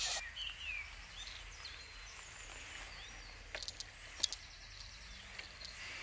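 Quiet outdoor ambience with faint birds calling in short chirps, over a low steady rumble, and a few soft clicks a little past halfway.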